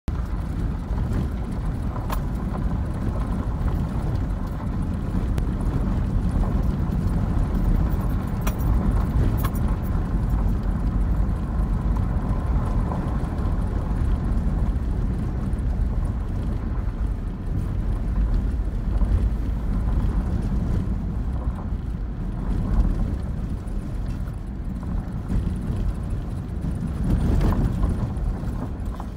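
Car driving over a rough dirt track, heard from inside the cabin: a steady low rumble of engine and tyres on gravel, with a few sharp knocks and rattles as it hits bumps.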